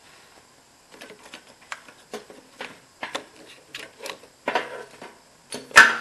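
Irregular clicking and rattling of hard parts being handled, with a louder knock near the end.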